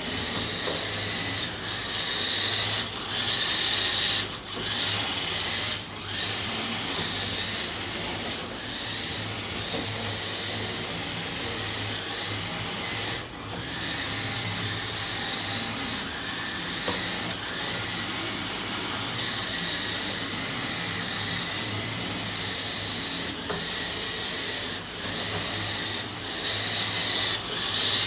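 Märklin 1022 electric motor whirring steadily through its reduction gearing as the metal construction-set locomotive runs along two-rail G gauge track, with a low hum under a higher whine.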